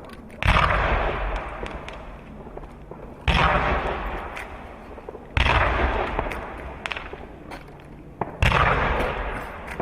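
Consumer fireworks cake firing shots one by one, about two to three seconds apart: four loud booms, each fading away over a couple of seconds.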